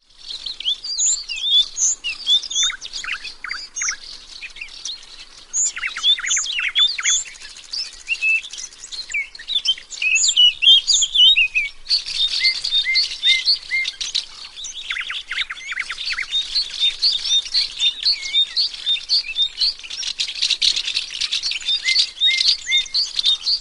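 Ambience of several small birds chirping and calling at once: a busy chorus of short high chirps and quick sweeping notes that overlap. The chorus grows denser about halfway through.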